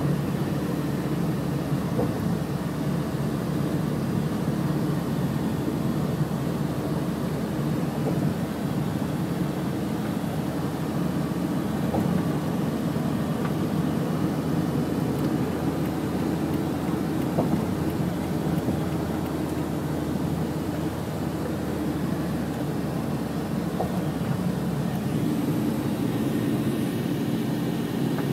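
Steady low rumble of engine and tyre noise, heard from inside a moving road vehicle.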